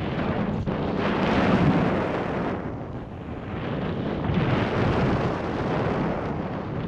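A snowboard's edge hissing through powder snow, mixed with wind rushing over a pole-mounted action camera's microphone. The noise swells on each turn, loudest about a second and a half in and again about five seconds in.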